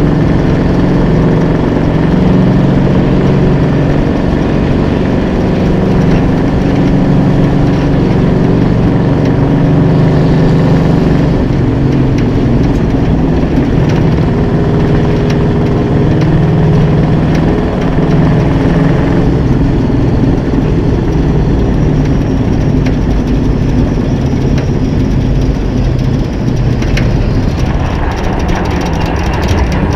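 Small-block V8 of a vintage late model dirt racer, a 355, running hard under racing load and heard close up from an onboard mount beside the engine. Its pitch rises and falls as the driver gets on and off the throttle through the corners.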